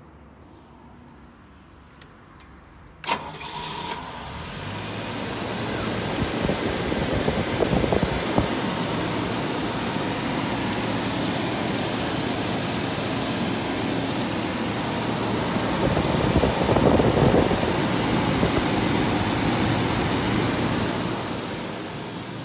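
1986 Jaguar XJ-S V12 engine started from cold, catching suddenly about three seconds in after a couple of faint clicks, then idling steadily. The running sound builds over the first few seconds after it catches, is loudest a little past the middle, and eases slightly near the end.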